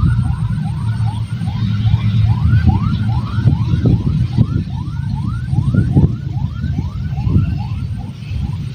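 A chirping call repeated about three times a second, each chirp quickly rising then falling in pitch, over a steady low rumble.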